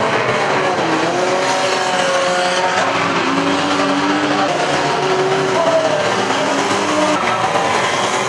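Several banger race cars' engines revving at once, their pitches rising and falling unevenly, mixed with tyre squeal and skidding on the track.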